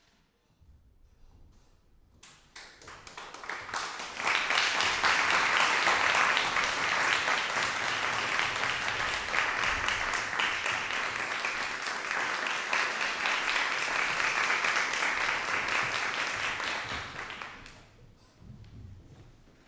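Audience applauding. The clapping starts about two seconds in, builds to full strength within a couple of seconds, holds steady, and dies away near the end.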